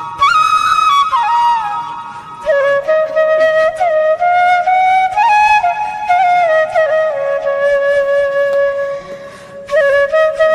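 Background music: a flute playing a slow melody of long held notes with small ornamental turns, pausing briefly about two seconds in and again near the end.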